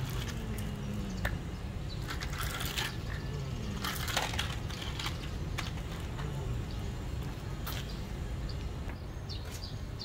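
Light clicks and clatters of small gravel stones being handled, in two short clusters about two and four seconds in, with a few single clicks between, over a steady low background hum.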